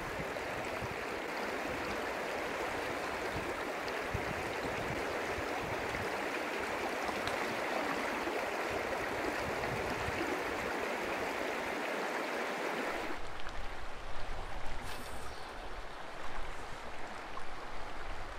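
Creek water rushing over rocks in a steady, even rush. About thirteen seconds in it cuts off suddenly to a quieter, more uneven rush of water.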